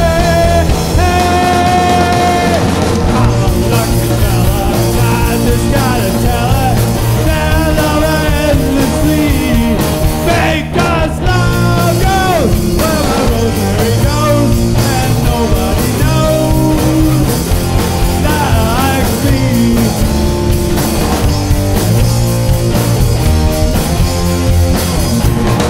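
Rock band recording: guitars, bass and drums playing loud, with a melody line bending and sliding in pitch over the top.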